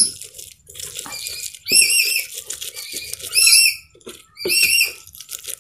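Stone pestle grinding and rubbing chillies and shallots in a stone mortar in a soft, steady rhythm. Short runs of high, squeaky chirps come every second or so and stand out as the loudest sound.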